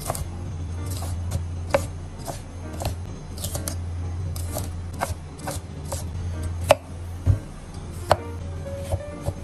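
Chef's knife dicing bell pepper and zucchini on a wooden cutting board: irregular knife strokes through the flesh and onto the board, a few of them sharper, over a steady low hum.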